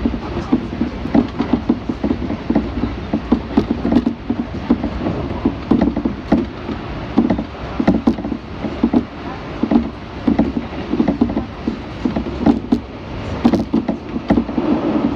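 Kintetsu electric train running, heard from inside the carriage: a steady rumble with many irregular clicks, knocks and rattles from the car body and running gear.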